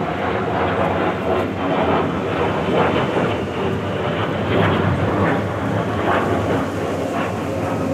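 Jet engines of military jets flying overhead: a loud, steady rumble that wavers in level.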